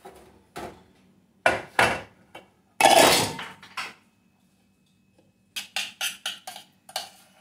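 Kitchen clatter of pots and dishes: several sharp knocks and clanks in the first four seconds, the loudest about three seconds in, with a glass pot lid being set down on the counter. Near the end comes a quick run of about seven sharp taps.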